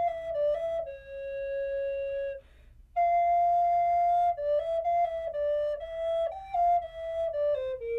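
Solo wooden recorder playing a slow melody. A long held note is followed by a brief breath gap about three seconds in, then another long note, then a run of shorter notes that step up and down and fall near the end.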